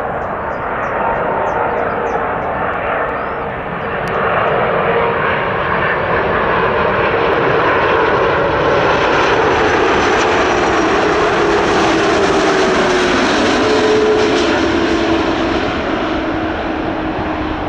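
Airbus A330-300 freighter's twin jet engines roaring as it comes in to land, growing louder to a peak and then easing, with a whine that drops in pitch as the aircraft goes past.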